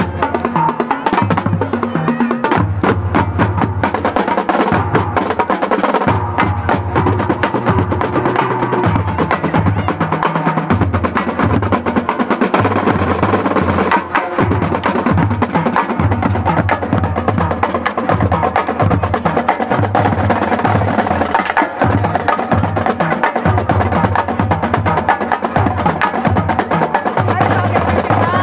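Marching drumline playing a fast cadence: snare drums with dense, rapid strokes over tenor drums and repeated low bass-drum beats.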